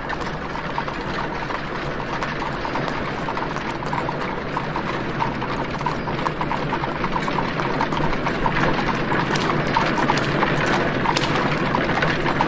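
Horse hooves clip-clopping on a street over a steady haze of street ambience, part of an added sound-effects track for a silent film. The hoofbeats grow somewhat louder toward the end, as a horse-drawn cart comes close.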